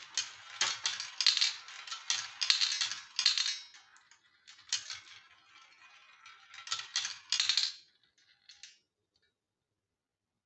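Marbles rolling and clattering down a marble run of wooden and plastic track pieces, a rapid run of clicks and rattles that dies away about eight seconds in.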